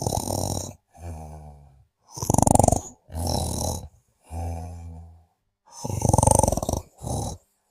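A sleeper snoring in a steady breathing rhythm. Loud, rasping snores come every two to three seconds, and each is followed by one or two quieter, lower, buzzing breaths.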